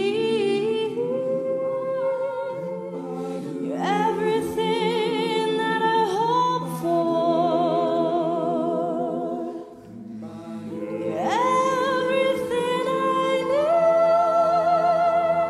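Mixed a cappella choir singing sustained backing chords while a female soloist sings over them with vibrato. Her voice slides up to a high held note about four seconds in and again around eleven seconds; the group softens briefly just before ten seconds in, then swells again.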